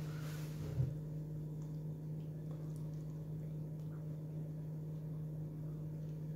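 A steady low hum, with faint chewing and small mouth noises from someone eating an open sandwich, and one soft knock just under a second in.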